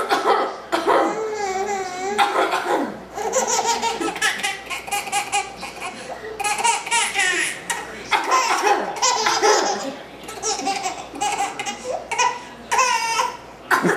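An eight-month-old baby laughing hard in repeated bouts of belly laughs.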